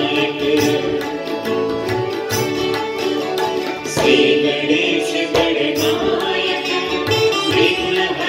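Nepali devotional bhajan played live: harmonium holding chords, with acoustic guitar and tabla.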